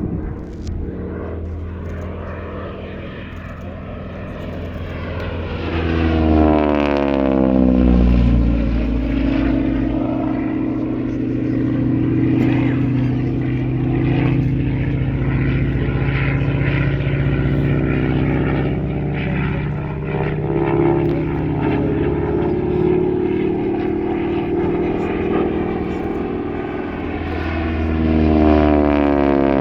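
North American T-6 Texan/Harvard's Pratt & Whitney R-1340 Wasp radial engine and propeller running through a display flight, getting louder as it comes in. The pitch drops as it passes close about seven seconds in, with another close pass near the end.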